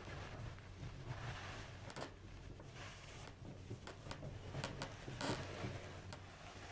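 Soft rubbing and rustling of hands on skin and fabric, broken by several sharp clicks and pops: the cracking sounds of an ASMR chiropractic adjustment. A louder pop comes about three-quarters of the way through.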